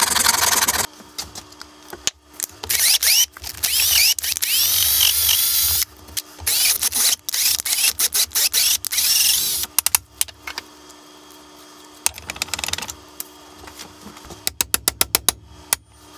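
Cordless drill boring into a metal part clamped in a bench vise, in repeated bursts, at times with a wavering high squeal from the bit against the metal. A short harsh scrape comes at the start, and a quick run of sharp clicks near the end.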